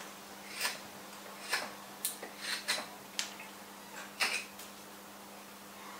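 Nessmuk knife slicing into a willow spoon blank: about eight short, crisp carving cuts at uneven intervals. A faint steady hum runs underneath.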